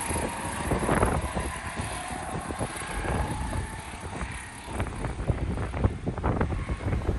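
Go-kart engines whining as the karts drive away down the track, the whine faint and falling slowly in pitch. Wind buffets the microphone with irregular low rumbles throughout.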